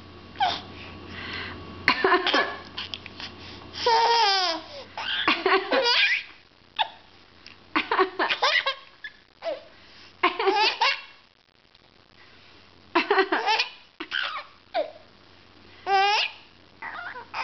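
A baby laughing in repeated high-pitched bursts of giggles and belly laughs, a new burst every second or two, set off by a grandmother's pretend coughing.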